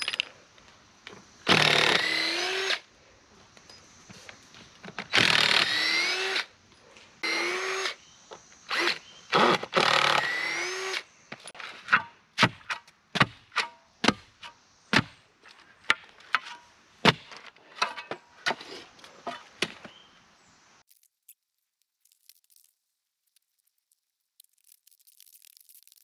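Cordless drill-driver run in four short bursts of about a second each, its pitch rising within each burst. These are followed by a run of sharp knocks and taps, about one a second, for some eight seconds.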